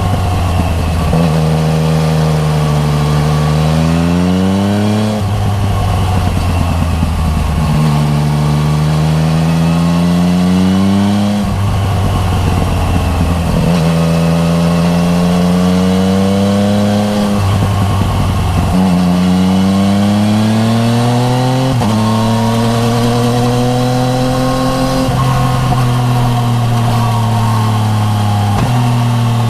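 Yamaha MT-09 Tracer's 847 cc inline three-cylinder engine breathing through an Akrapovic titanium full exhaust system, heard onboard. The engine note rises under throttle and drops back again and again, with a steadier stretch near the end.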